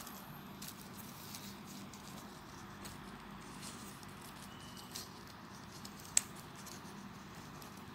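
Faint rustling and light clicking of folded paper units as a 3D origami bowl is handled, with one sharp click about six seconds in.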